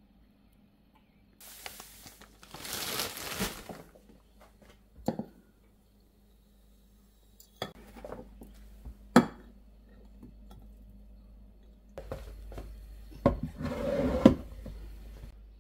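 A large swing-top glass jar of silverberries packed in sugar being handled: a rustling stretch early on, then several sharp knocks and clinks of glass. Near the end come a scraping rustle and knocks as the jar is set onto a wooden shelf.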